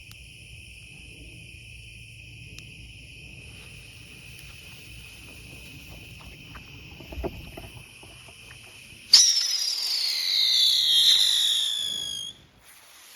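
Crickets chirp steadily, with a brief crackle about seven seconds in. About nine seconds in, an aerial spinner firework ignites with a loud whistle that falls steadily in pitch for about three seconds, then cuts off abruptly.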